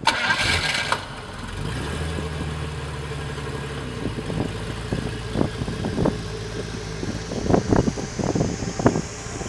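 Jaguar E-type Series 3 V12 engine running at idle, opening with a loud burst of noise lasting about a second. In the second half a series of short, sharp sounds rises over the engine.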